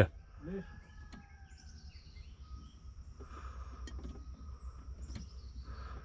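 Quiet woodland background with faint bird and insect calls and a few light clicks of the ignition switch being worked on a 1984 Ford Thunderbird. No fuel pump hum can be heard, a sign that the 5.0 EFI's electric fuel pump is not running.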